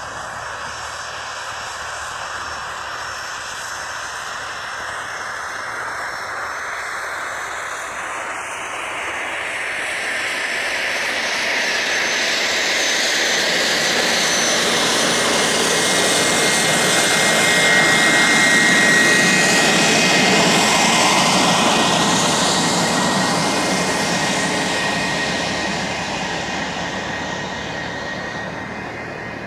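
Piper Archer single-engine piston airplane passing close by. Its engine and propeller sound builds to its loudest a little past the middle, then fades as it moves away.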